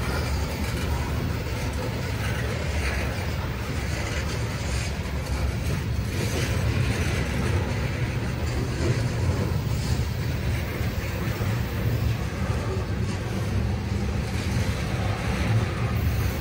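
Norfolk Southern covered hopper cars of a grain train rolling past close by: a steady rumble of steel wheels on the rails.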